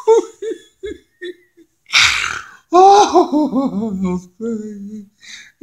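A man laughing without words: a few short chuckles, a sharp noisy breath about two seconds in, then a longer falling run of laughter, ending in a drawn-out low voiced sound.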